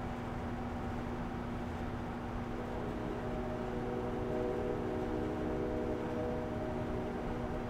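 Steady outdoor night ambience: a constant low hum over background noise. A cluster of higher droning tones swells in about two and a half seconds in and fades out near the end.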